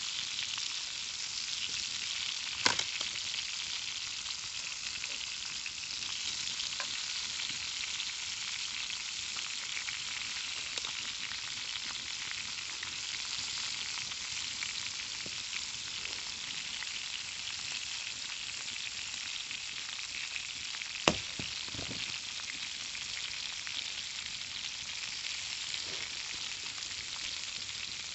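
Conecuh smoked sausage links sizzling steadily as they fry in a cast iron skillet, with scattered small ticks. Two sharp clicks stand out, one a few seconds in and another about twenty seconds in.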